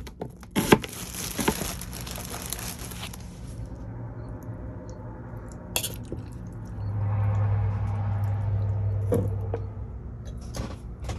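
A metal spoon scraping and clinking against a small metal cooking pot while ground meat is spooned out. A few seconds later comes a low steady hum that lasts about three seconds.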